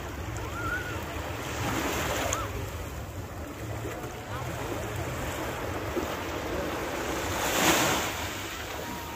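Small waves breaking and washing up onto a sandy shore, with wind rumbling on the microphone. One louder wash rushes in near the end.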